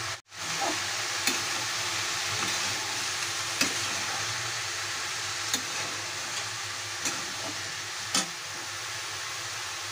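Diced capsicum, potato and brinjal sizzling in hot oil in a kadai as a metal spatula stirs them. A steady hiss runs throughout, with a few sharp knocks of the spatula against the pan. The sound cuts out briefly just after the start.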